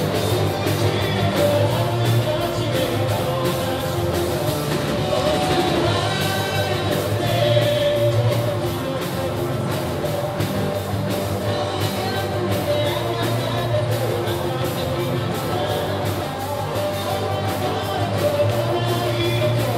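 A live band playing a kayō-style pop song on acoustic and electric guitars, drum kit and keyboard, with a man singing the lead vocal over a steady beat.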